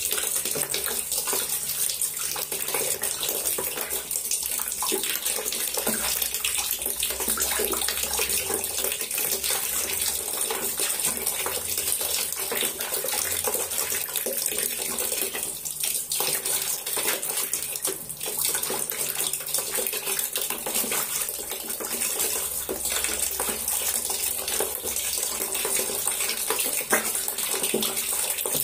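Water running and splashing steadily in a plastic tub as a white domestic duck bathes in it.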